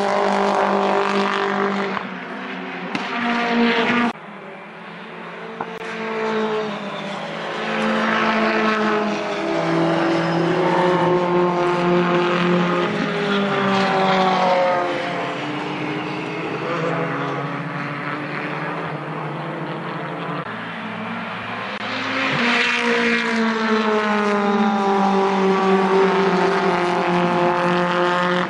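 British Touring Car Championship race cars running at speed, engine notes climbing and dropping as they accelerate, shift and pass one after another. The sound breaks off abruptly about four seconds in before the next car comes through.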